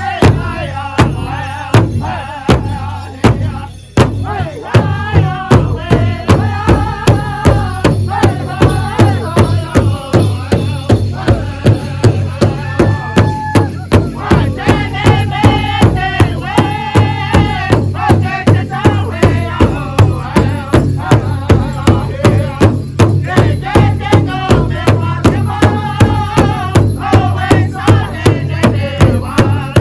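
Powwow drum group: several singers singing together over a big drum struck in a steady beat, about two strikes a second, with a brief lull about four seconds in.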